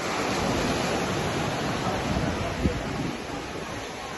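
Sea surf: waves breaking and washing up a pebbly beach, a steady rush of noise. A brief low thump comes about two and a half seconds in.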